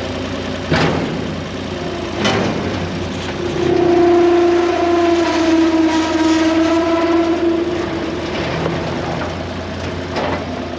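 Skid loader engine running steadily, with two sharp metal clanks in the first few seconds. From about 3.5 to 8 seconds in, a strong sustained whine rises over the engine.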